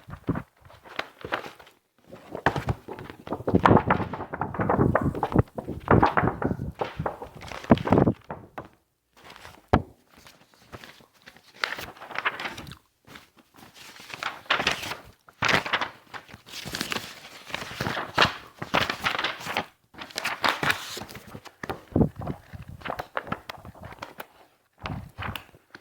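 Sheets of paper being handled close up, rustling and crinkling in irregular bursts with brief pauses and a few dull thuds.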